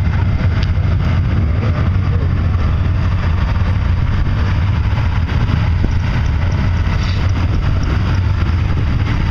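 Lifted off-road 4x4's engine running as the truck churns through a mud pit, a loud, steady, low sound.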